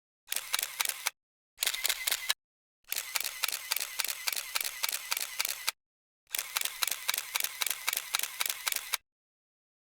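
Camera shutter firing in continuous burst mode: four runs of rapid-fire clicks with silence between them. The first two runs are short and the last two last about three seconds each.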